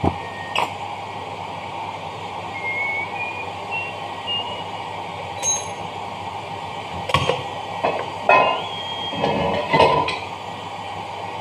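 Steel parts of a dough mixer's gearbox clinking and knocking as a gear shaft, its bearings and a steel sleeve are fitted into the cast gear housing. There are a few sharp metal knocks, the loudest in the second half, over a steady workshop hum.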